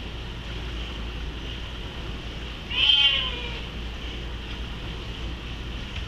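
Bengal cat giving one loud meow about three seconds in, a pitched cry that falls away at its end: it is crying to be let through the door to go upstairs.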